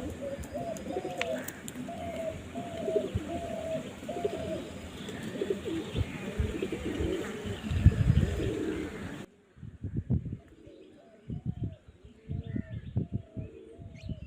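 Doves cooing repeatedly, a run of short coos about two a second, over low knocks and thumps. About nine seconds in the background hiss drops off suddenly and the cooing carries on more faintly.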